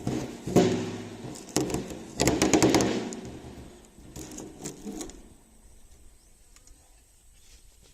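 A few sharp knocks and a quick rattling clatter, like objects being handled, dying away after about five seconds.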